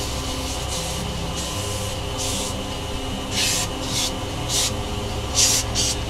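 Wood lathe running steadily while sandpaper is held against the spinning wooden mallet head. About two seconds in, a series of short hissing sanding strokes begins and repeats irregularly over the steady motor hum.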